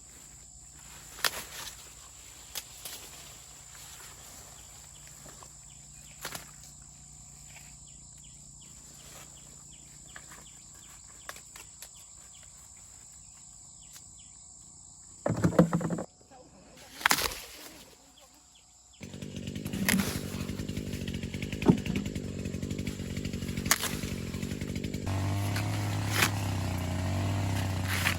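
A small engine running steadily, starting about two-thirds of the way in and dropping in pitch near the end, after a couple of loud knocks. Before that, a faint steady high insect-like tone and a few clicks.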